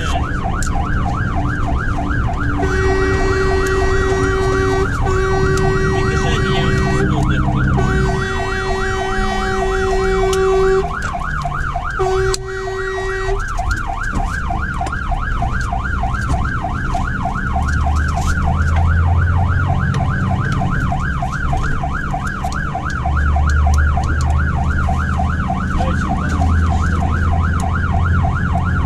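Fire engine's siren in a fast up-and-down yelp, about four cycles a second, heard from inside the cab. From about three seconds in to about thirteen seconds in, four long blasts of a horn sound over it, and the engine's low drone grows louder in the second half.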